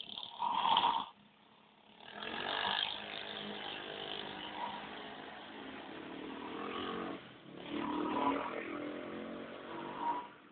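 A person snoring: a short snore under a second in, then two long, buzzing snores, the first lasting about five seconds and the second running until near the end.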